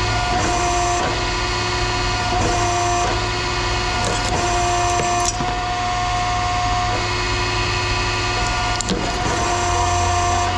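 Machinery running with a steady whine and hum, its tones cutting in and out every second or two, with a few sharp metallic knocks about four to five seconds in and again near nine seconds.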